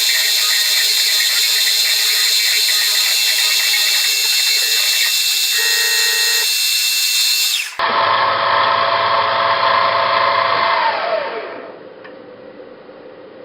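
Spindle of a CNC-converted BF20 Vario milling machine running during gear cutting. After an abrupt break about eight seconds in, the spindle whine falls in pitch as it winds down, leaving a quieter steady hum.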